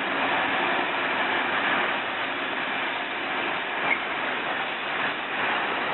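Loaded open freight wagons of a sugar-beet train rolling past, a steady noise of wheels running over the rails, with a brief sharp click about four seconds in.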